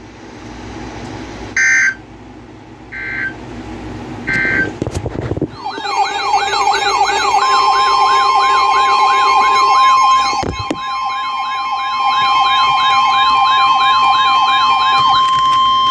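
Emergency Alert System tones: three short buzzy digital data bursts about a second and a half apart, the end-of-message signal, then a loud warbling siren-like alert sound sweeping up and down a few times a second. About two seconds after the warble starts, a steady alert tone joins it and holds on after the warble stops near the end.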